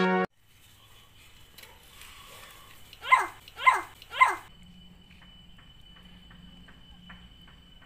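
Three short animal cries about half a second apart, each falling steeply in pitch. They are followed by a faint steady high whine with soft regular ticks.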